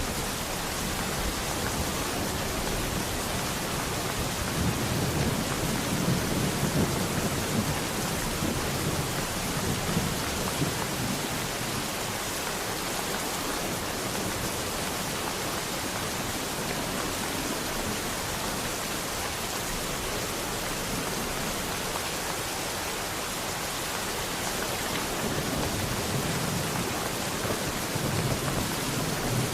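Steady rain falling, an even hiss, with low rumbles of distant thunder swelling a few seconds in and again near the end.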